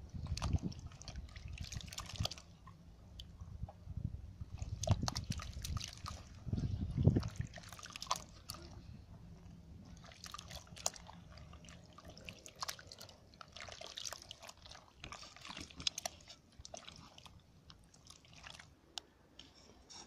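A rubber-gloved hand squelches and sloshes through a bucket of watery clay slurry, with irregular wet splashes and drips. The heavier sloshing comes in the first couple of seconds and again about five and seven seconds in.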